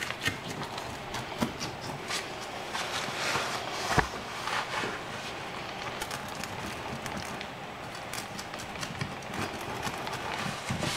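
Pizza cutter wheel rolling through a crisp-baked pizza crust, a steady run of crunching and crackling clicks. A sharper knock about four seconds in.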